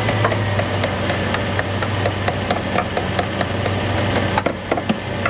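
Chrysler 300C's Hemi V8 idling steadily, with scattered light clicks and knocks over it that come more often near the end.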